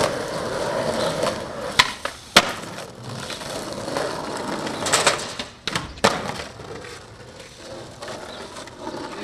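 Skateboard wheels rolling over rough alley pavement, with several sharp clacks of the board on the ground, two in the first few seconds and a cluster around the middle. The rolling grows quieter in the last few seconds.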